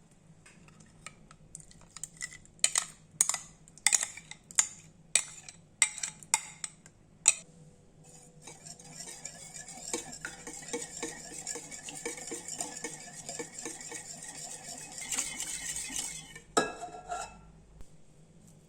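Kitchen utensils working in a bowl: a run of sharp clinks, then several seconds of steady rhythmic mixing, and a couple of knocks near the end.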